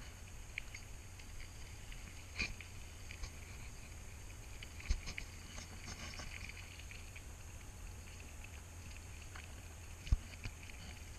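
Bicycle rolling along a gravel road: a steady low rumble from the tyres and frame, with a few sharp clicks and knocks as it jolts over the stones.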